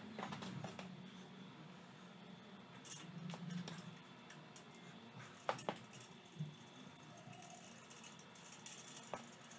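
Light metallic clicks and clinks as main bearing caps and their parts are handled and set in place over the crankshaft of a small-block Chevy engine. A few sharper clicks come about five and a half seconds in.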